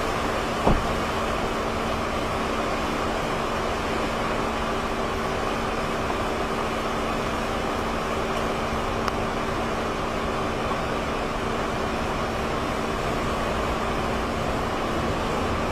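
Steady hurricane wind and rain noise with a constant low hum underneath, and a single brief knock about a second in.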